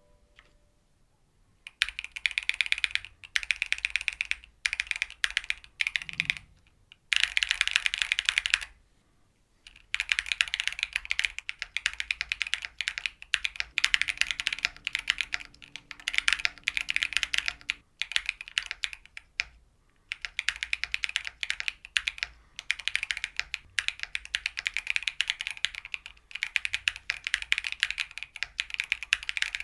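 Mechanical keyboard typing on lubed Y&R Studio Veri Peri linear switches, which have nylon top and bottom housings and a POM stem. The keystrokes come in fast runs of a few seconds, broken by short pauses. The typing starts about two seconds in.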